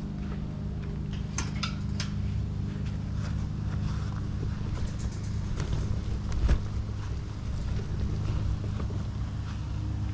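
A small vehicle engine running steadily at a low, even pitch, with scattered clicks and rattles and one thump about six and a half seconds in.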